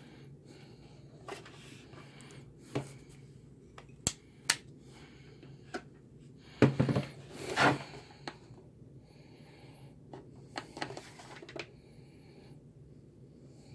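Scattered plastic clicks and knocks from handling a portable power station: an AC plug pushed into its outlet and the unit's buttons pressed, with a louder cluster of knocking and rustling about seven seconds in.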